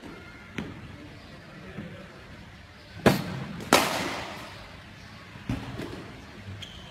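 Two sharp cracks about two-thirds of a second apart, each ringing on in the room: a cricket bat striking a ball during a swinging shot. Fainter knocks come before and after.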